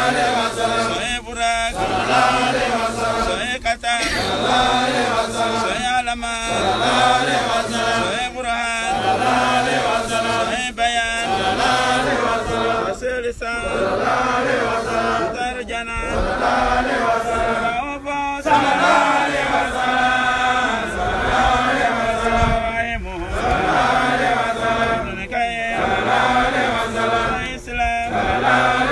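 Men chanting a Muslim litany of holy names. One voice leads from a booklet and other male voices chant along, in phrases of about two to three seconds with short breaks between them.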